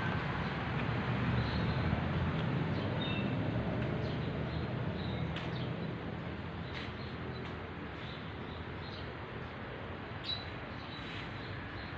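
Outdoor ambience: a steady low rumble of road traffic that eases off about halfway through, with faint short bird chirps scattered over it and a couple of small clicks.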